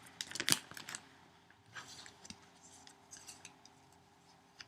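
Small hard clicks and taps of trading cards and their packaging being handled, loudest in the first second, then a few faint ticks.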